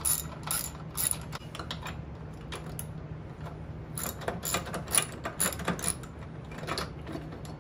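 Socket ratchet clicking in quick runs as a bolt on a mower's belt guard is worked loose: one run in the first second or so, another from about four to six seconds in.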